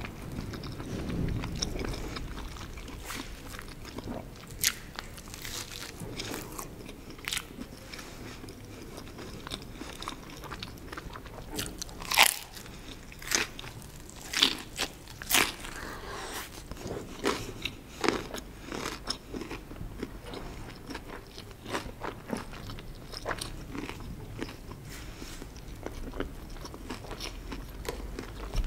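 Close-miked biting and chewing of crusty cheese-stuffed bread, with sharp crunches of the baked crust scattered among softer chewing. The loudest crunches come in the middle stretch.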